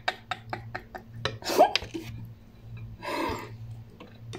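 A woman laughing in quick, breathy pulses, with two stronger breathy bursts about one and a half and three seconds in, over a steady low hum.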